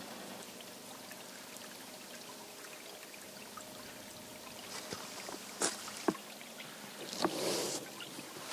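Faint, steady trickling of water, with a few sharp clicks in the second half.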